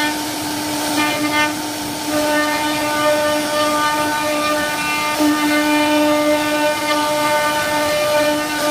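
CNC router spindle running at a steady pitch as its carving bit cuts a relief pattern into a wooden panel, a constant whine over the hiss of cutting.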